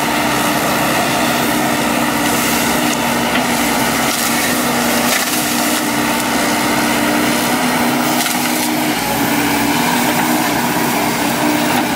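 Volvo EC210 crawler excavator's diesel engine running steadily under load with a constant hydraulic whine, while the bucket digs into a mound of soil and roots with crackling and crushing of wood and brush.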